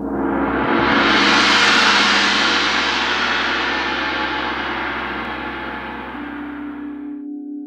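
A gong's shimmering wash swells up over about two seconds, then slowly fades and cuts off abruptly about seven seconds in. About six seconds in, the steady, pure ringing tones of a singing bowl come in beneath it.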